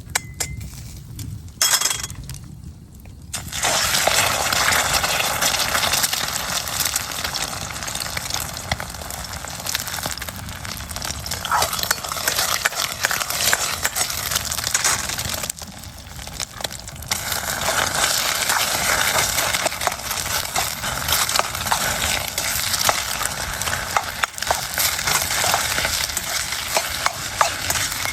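Fried rice sizzling in an iron wok, with the spatula scraping and clicking against the pan as it is stir-fried. It starts about three seconds in and pauses briefly about halfway through.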